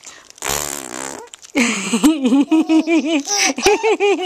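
Playful voice noises: a short, buzzy, fart-like vocal noise, then a quick run of high-pitched, laugh-like syllables, each rising and falling, about four a second.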